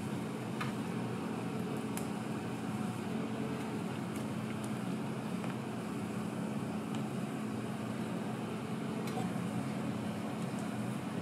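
Steady hum of running kitchen equipment, a constant low tone under a soft even noise, with a few faint clicks.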